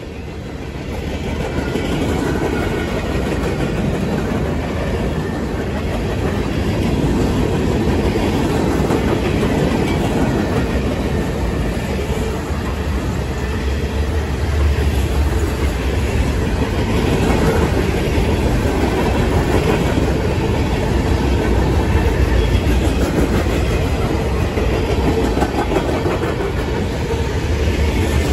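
Freight cars of a CSX local train rolling past at speed: a steady rumble of steel wheels on rail that grows louder over the first two seconds.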